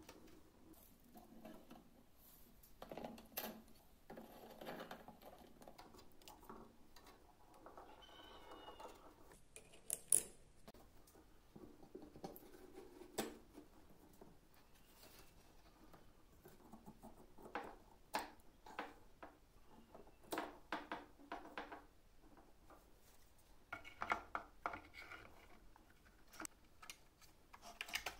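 Faint, scattered clicks, taps and light scrapes of small metal fittings and wooden parts being handled and fitted onto a wooden model jeep chassis resting on a wooden tabletop, with one sharper click about ten seconds in.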